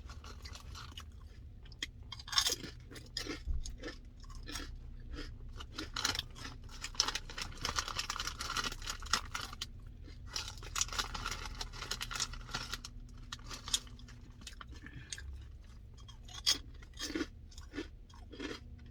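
A person chewing and crunching food close to the microphone, with many irregular crunchy bites and chews.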